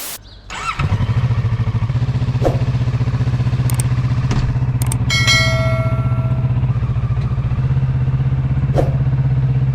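Kawasaki Z650RS parallel-twin motorcycle engine running steadily at a constant low pitch, coming in about a second in. A short high tone sounds briefly about five seconds in.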